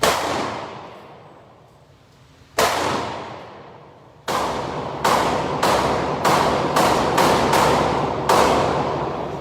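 Gunshots from a firearm being fired at a shooting range: three spaced shots, then a quicker string of about eight, each with a ringing echo.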